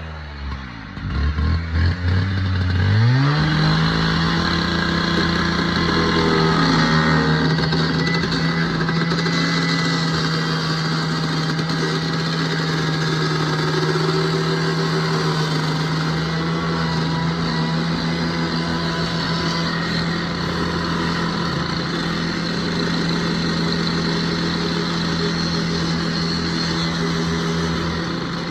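An engine running low and unevenly, then revving up about three seconds in and holding a steady high speed.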